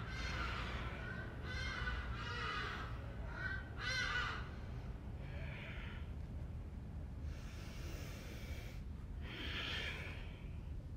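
A woman's audible breathing: several slow breaths in and out, each a soft rush of air lasting about a second, over a low steady background rumble.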